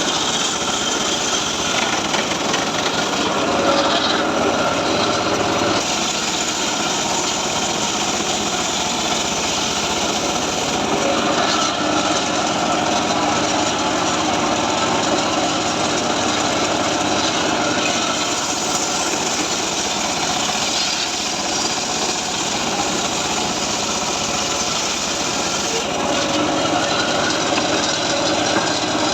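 Homemade circular saw rig running and cutting teak wood: a loud, steady mechanical whine and rush, its sound shifting every several seconds as the cut changes.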